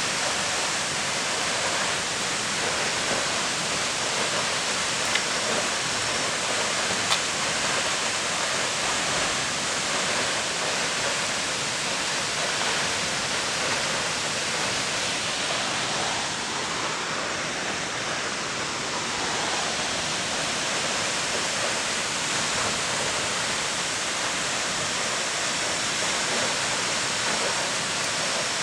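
Steady rush of Akaka Falls, a tall plunge waterfall, falling water heard as an even, unbroken roar.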